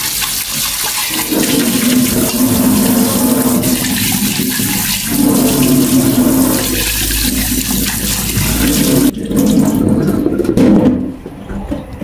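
Tap water running and splashing into a sink as chicken parts are rinsed under it. It breaks off sharply about nine seconds in, runs again briefly, then dies down near the end.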